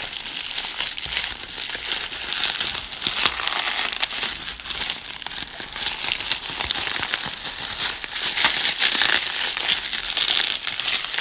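Plastic bubble wrap being handled and pulled open by hand, crinkling and crackling continuously with many small sharp clicks.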